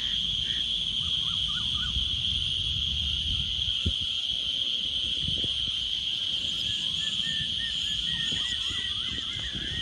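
Evening chorus of insects: a steady, high-pitched shrill drone that holds without a break, with faint short chirps scattered over it and a low rumble beneath.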